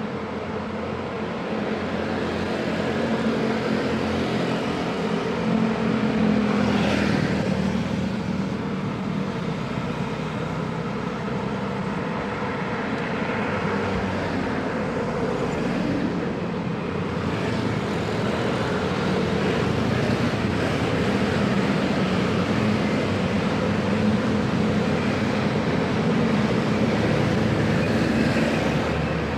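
Busy road traffic: many vehicle engines and exhausts running together in a steady din, swelling briefly about a quarter of the way in.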